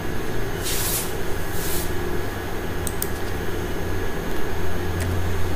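A steady low rumble of background noise that swells near the end, with two short hisses about a second in and a few faint clicks around the middle.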